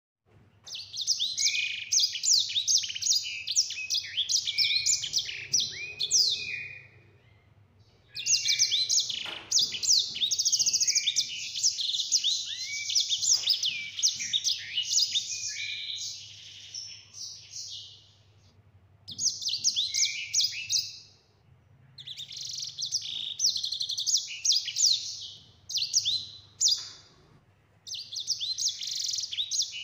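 Caged sanger, a small songbird of the canary family, singing long rapid phrases of chirps and rolling trills. The song comes in bursts of several seconds with short pauses between.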